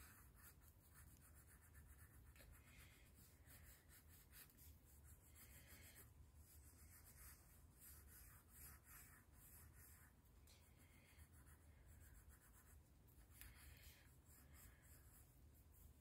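Faint scratching of a graphite pencil on notebook paper, in short irregular strokes as it sketches.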